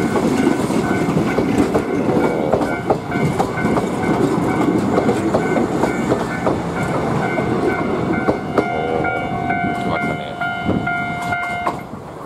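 Yoro Railway electric train running past close by, its wheels clicking over the rail joints, while the level crossing alarm rings with a repeating tone. Near the end the alarm cuts off suddenly and the train noise fades.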